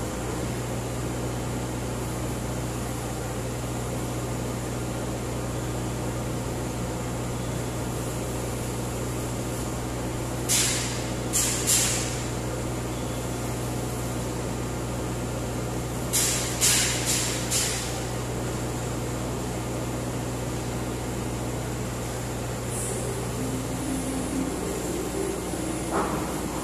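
Komatsu PC78UU excavator's diesel engine idling steadily. It is broken by sharp clanks: three in quick succession about ten seconds in, four more around sixteen to seventeen seconds, and a single knock near the end.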